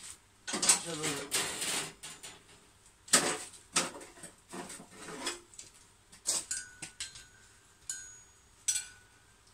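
Steel rebar and blacksmith's tongs clinking against the anvil and each other: a scatter of sharp metallic clanks, several leaving a short ring. A brief voice-like sound comes in the first couple of seconds.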